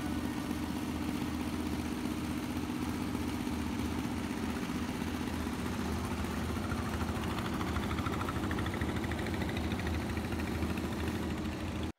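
Boat engine running steadily while under way, with a steady rushing hiss of water and wind over it.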